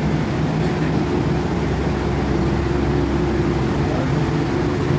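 Steady drone of coconut oil mill machinery running during processing: a low hum with a couple of steady tones over it, unchanging.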